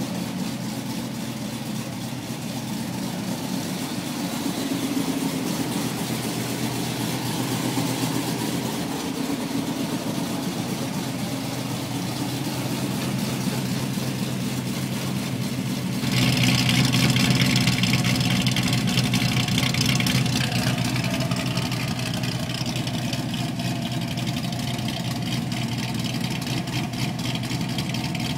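Cammed 6.2 L LS3 V8 of a 2008 Corvette idling after a cold start, through long-tube headers and an NPP dual-mode exhaust. About 16 s in the sound turns suddenly louder and harsher, then eases back over the following seconds.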